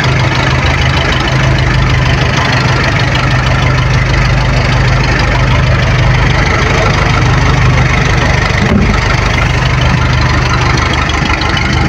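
Fishing boat's engine running steadily, a loud, even low hum.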